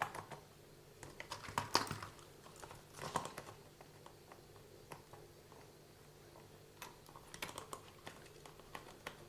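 Light, scattered clicks and taps of small plastic and metal RC car drivetrain parts being handled and turned by hand, over a faint steady hum. The loudest clicks come about two and three seconds in.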